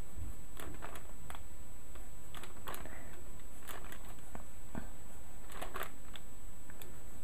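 Pencil lead scratching lightly on paper in short, scattered strokes as faint lines are gone over again, over a steady low hum.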